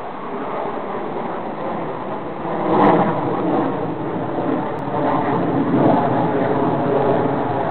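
Jet aircraft flying a loop overhead, its engine noise a continuous rush that swells about three seconds in and again around six seconds.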